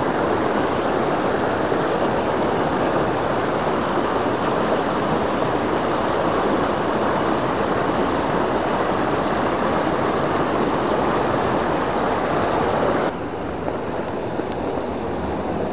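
Mountain torrent rushing over a small rocky cascade, a steady rush of water. About thirteen seconds in it drops abruptly to a softer rush.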